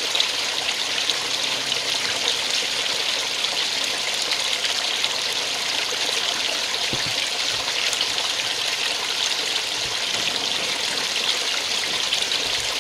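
A small garden water feature's cascade, water spilling over a ledge and splashing steadily into a shallow pond.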